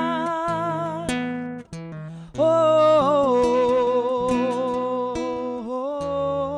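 Woman's voice singing long held notes with no words over a soft instrumental accompaniment, in a gospel worship song. The voice breaks off briefly about two seconds in, then comes back on a new, louder long note that wavers and slides down in pitch.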